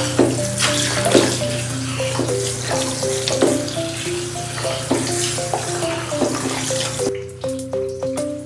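Handheld shower head with a brush attachment spraying water over a dog's coat and into a plastic dog bathtub; the spray stops about seven seconds in.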